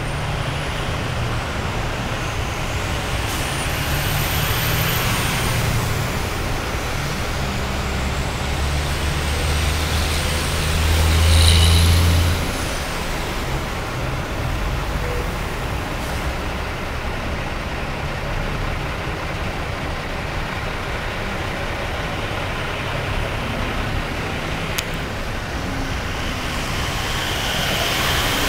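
Freeway traffic: heavy diesel trucks and cars passing, a steady road rumble with engine drone that swells to its loudest a little before halfway. Near the end a hiss rises as trucks start throwing spray through standing floodwater.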